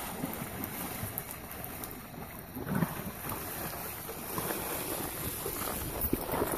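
Horse hooves splashing through a shallow creek as a horse wades across, with wind buffeting the microphone; the splashing briefly gets louder about three seconds in.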